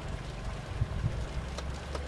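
G-scale model freight train running on outdoor track, a steady low rumble with faint clicks of wheels on the rails, mixed with wind buffeting the microphone.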